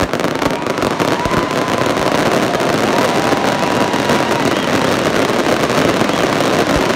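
Aerial fireworks going off in a dense barrage: a continuous, loud crackling and popping of many shells at once. A thin whistle comes and goes through it.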